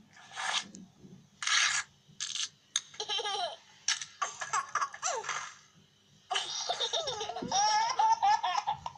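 Babies laughing and babbling, played back from a TV commercial through a small phone or screen speaker.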